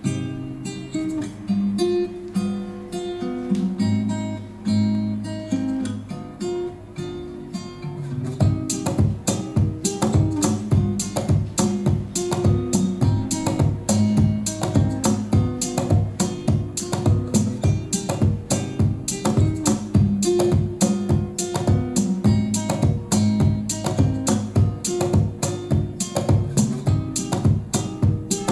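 Instrumental acoustic guitar music played through a TDA2030A amplifier module: single picked notes at first, then from about eight seconds in fast, steady rhythmic strumming.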